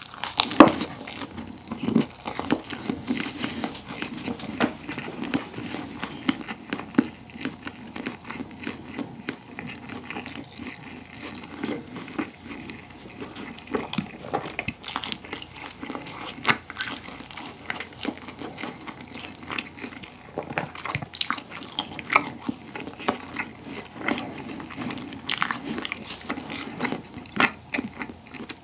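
Close-miked biting and chewing of a crusty pollock roe baguette topped with rice: the crust crackles with each bite and chew, and the loudest bite comes about a second in. The bread is torn apart by hand partway through.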